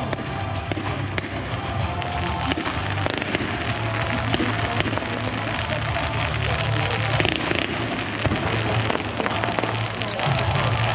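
Aerial fireworks bursting, a rapid string of bangs and crackles, over music playing.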